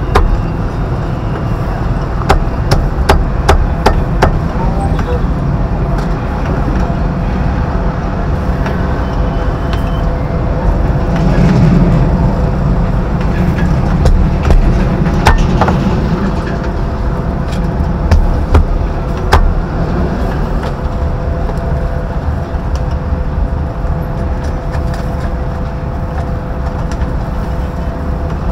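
Busy street ambience: traffic running with voices in the background and scattered sharp clicks and knocks, swelling louder about eleven seconds in.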